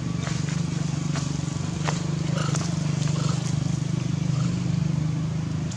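A small engine running steadily nearby, a low drone with a fast flutter, over a few faint clicks and rustles.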